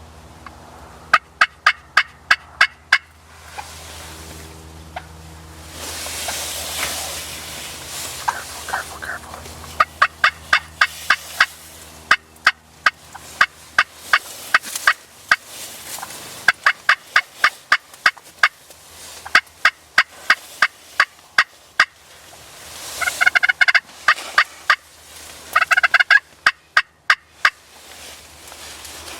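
Turkey calls: repeated runs of short, sharp notes, about four or five a second, each run lasting a second or two, with a gust of wind about a quarter of the way in.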